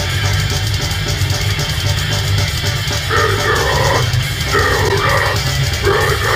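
Death metal band playing: heavily distorted guitars over dense, fast drumming, with the mid-range part of the riff cutting in and out in chunks from about three seconds in.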